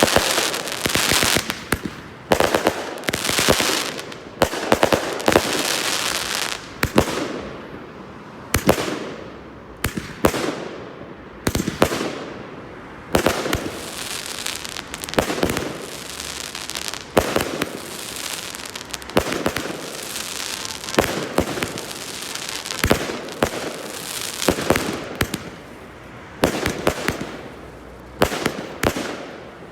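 Fireworks display: a rapid, continuing series of shell bursts, several bangs a second at times, with crackling tails fading after the bursts.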